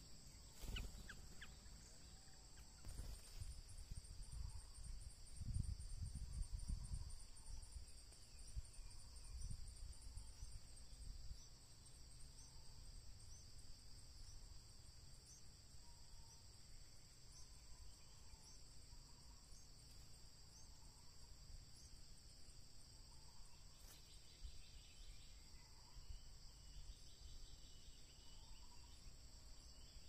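Steady high-pitched drone of insects, held on two even pitches throughout, with a low rumble during roughly the first ten seconds, strongest about six seconds in.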